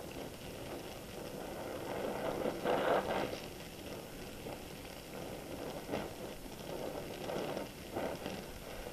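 Oxy-acetylene welding torch flame hissing steadily against a steel bracket while it melts the steel and the filler rod into one puddle, swelling louder a few times, most of all about three seconds in.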